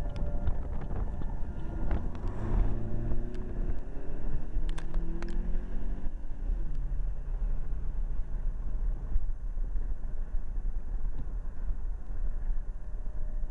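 Roof-mounted Federal Signal 3T22 three-tone warning siren winding down: its chord slides lower in pitch over the first several seconds and fades out. Steady wind rumble on the microphone runs underneath and is all that is left after that.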